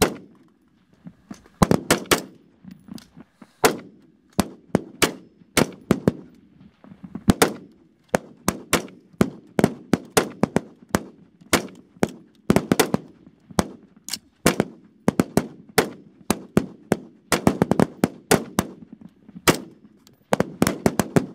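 Rapid-fire rifle shots from several rifles on a firing line: dozens of sharp reports at irregular intervals, at times several a second and overlapping, each with a short echo.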